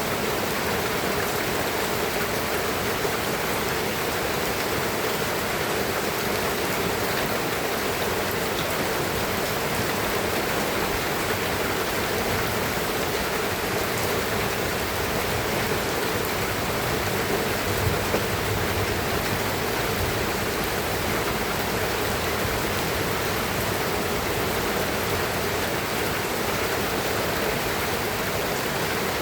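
Steady rain falling: an even hiss, with a few louder drops standing out now and then.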